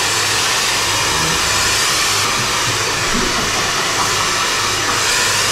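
Handheld hair dryer blowing steadily: a constant hiss of air with a faint low motor hum underneath.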